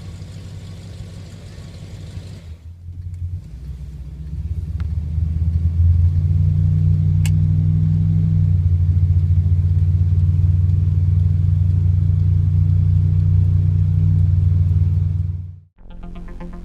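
Chrysler 440 big-block V8 running with a deep, steady exhaust rumble. It grows louder a few seconds in and holds at that level, then cuts off suddenly near the end.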